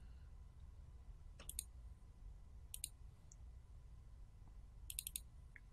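Faint clicks of a computer mouse's buttons: a double click about a second and a half in, another near three seconds, and a quick run of several clicks about five seconds in, over a faint low hum.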